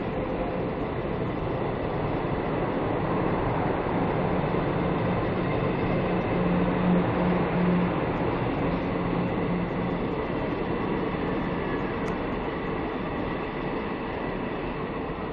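Mumbai suburban electric local train running along the platform, a steady rumble of wheels on rails with a low electric hum, growing louder to a peak midway and then slowly fading.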